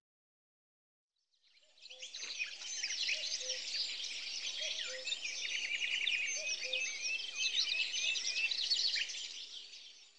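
Chorus of many songbirds chirping and twittering densely, with a short low note repeating about every second and a half. It fades in after about a second and a half of silence and fades out near the end.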